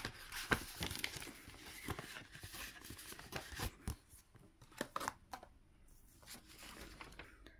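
Paper banknotes and envelopes rustling and crinkling as they are handled, a run of scattered crackles and soft clicks that thins out after about five seconds.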